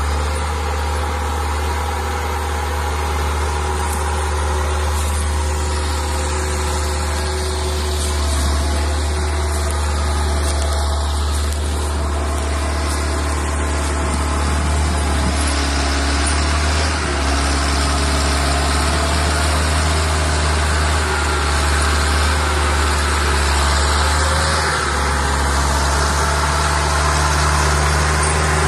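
Forestry forwarder's diesel engine running steadily, with only slight shifts in its note.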